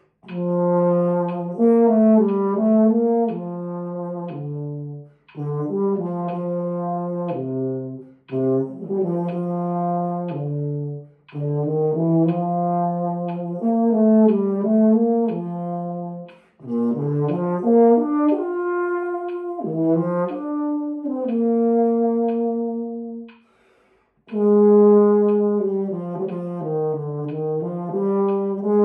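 Marching baritone horn played solo and unaccompanied: a melody of held and moving notes in phrases of a few seconds, with short pauses for breath between them.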